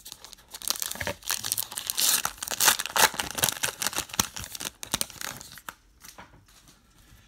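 Plastic wrapper of a Topps Heritage baseball card pack being torn open and crinkled by hand for several seconds, loudest in the middle, then quieting as the stack of cards comes out.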